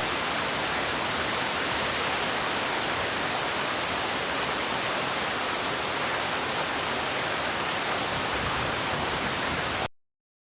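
Heavy thunderstorm rain making a steady, even hiss that cuts off suddenly near the end.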